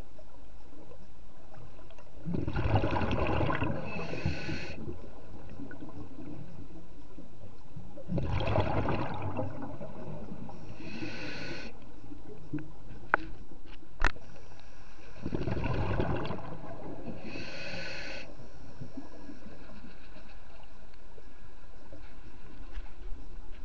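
Diver breathing underwater through a scuba regulator: three slow breath cycles, each a rush of air with a burst of exhaled bubbles, about six seconds apart. A couple of sharp clicks between them.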